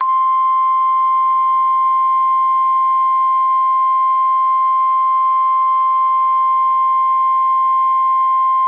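NOAA Weather Radio 1050 Hz warning alarm tone: one loud, steady, unbroken tone sounding ahead of a broadcast tornado warning.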